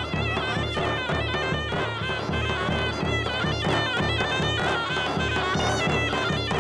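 Zurna playing a shrill, ornamented dance tune over a davul bass drum keeping a steady beat.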